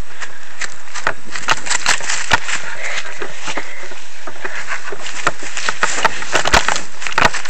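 A person running outdoors: irregular knocks, scuffs and rustles from footsteps and movement, with clattering handling noise from a camera taped to the airsoft gun.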